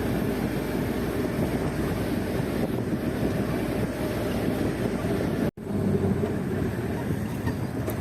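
Jeep driving on a bumpy road: a steady engine and road rumble. The sound drops out for an instant about five and a half seconds in.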